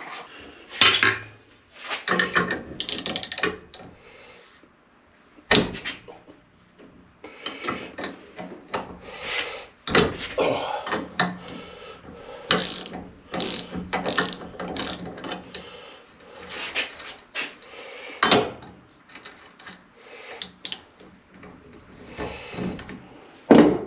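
Metal clicking and clinking of hand tools and parts as a wheel and its bearing are taken off a 2x72 belt grinder. The strokes are irregular, with a few sharper knocks, one about 5.5 s in and one just before the end.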